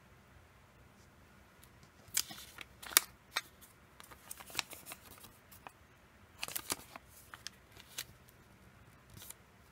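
Folded origami paper handled in the fingers: crisp crackling and rustling of the paper in short clusters, starting about two seconds in, loudest around three seconds in and again around six and a half.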